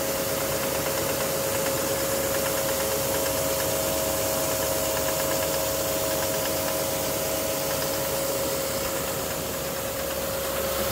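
Duramax LMM 6.6-litre V8 turbo-diesel running, with a steady whine over the engine noise and the knocking its owner is trying to trace, which he suspects lies in the injectors or the bottom end.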